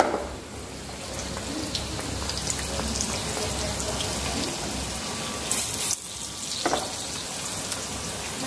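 Gram-flour-battered ajwain leaves deep-frying in hot oil in a kadhai: a steady sizzle flecked with tiny crackles, with two brief louder bursts a little past the middle.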